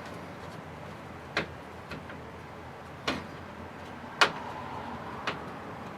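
Sharp clicks and taps of screws and a screwdriver on a small computer case while a motherboard is screwed down, about five spread over a few seconds, the loudest about four seconds in.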